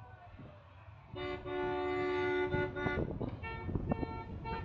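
Car horn honking: one long, steady honk of nearly two seconds starting about a second in, then a few shorter toots near the end.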